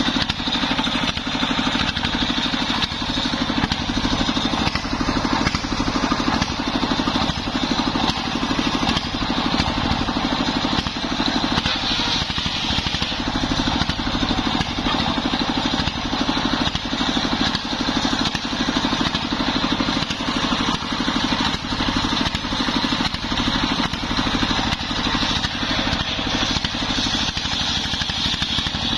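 Stationary single-cylinder diesel engine running steadily with an even rapid thudding, driving a belt-driven circular saw blade; a higher sawing whine swells at times as the blade cuts along a waru log.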